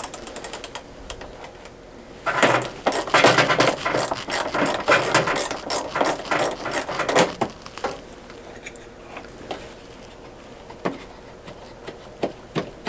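Hand ratchet clicking as a 5/16 screw is backed out of a front-load washer's drain-pump mounting arm. There is a quick run of clicks at the start, then several seconds of dense clicking and rattle, then only a few scattered clicks.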